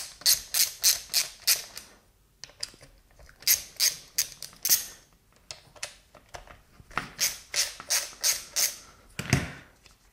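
Ratchet wrench clicking in three runs of about three to four clicks a second, with short pauses between, as 10mm nuts are undone. Near the end there is one louder knock.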